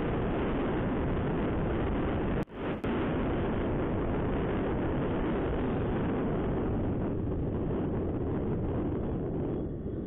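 Wind rushing over the microphone of a Honda SP125 motorcycle riding at speed in traffic, a steady dense roar that masks the engine. It cuts out for a split second about two and a half seconds in, and gets quieter and duller near the end as the bike slows into a turn.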